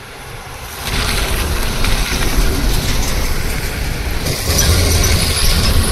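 Tata goods truck driving up the slope and passing close by: diesel engine running under load with tyre and road noise, growing louder about a second in.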